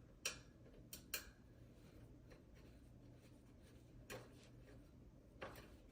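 Near silence broken by about five faint clicks and taps of a small screw and screwdriver being handled while fastening a wooden organizer panel, two close together about a second in and two more near the end.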